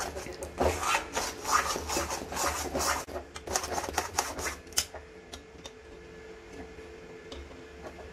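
Spoon scraping and stirring thick moong dal halwa round a metal kadai in strokes about twice a second. After about three seconds the strokes give way to lighter taps and clicks, then thin out.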